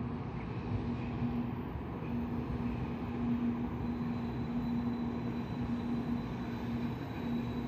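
Shinkansen train pulling slowly into the station: a steady rumble and hum, with a thin high whine joining about four seconds in.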